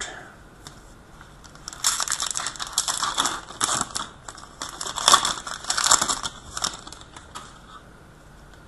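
Hockey card packs and cards being handled: a dense run of crinkling, crackling and sliding for about five seconds, quieter before and after.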